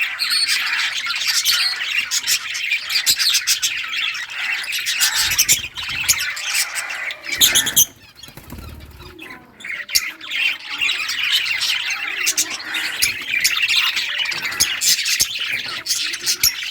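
A flock of budgerigars chattering and chirping in a fast, continuous stream, with wings fluttering. The chatter dips briefly about eight seconds in.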